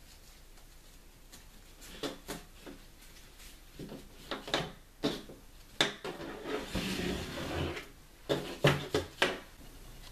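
Hands working a rifle sling and its air rifle on a tabletop: scattered clicks and knocks from the strap's fittings and the rifle against the table, loudest near six and near nine seconds, with a rustle of the strap around seven seconds in.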